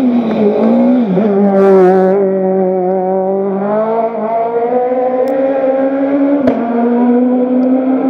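Citroën C2 S1600 rally car's naturally aspirated 1.6-litre four-cylinder engine held at high revs, its note dipping about a second in, then slowly rising and stepping up in pitch near the end.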